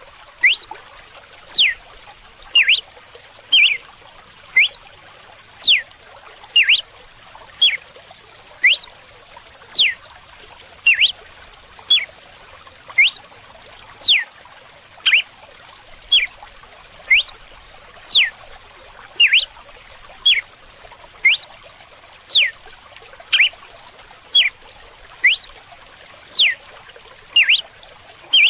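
Red-cowled cardinal (galo-de-campina) singing its 'açoite' whip song: short, sharp notes that sweep up or down, repeating about once a second. Running water hisses steadily underneath.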